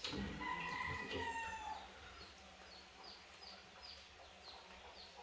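Rooster crowing, one long call that tails off about two seconds in, while a small bird chirps steadily, about three chirps a second.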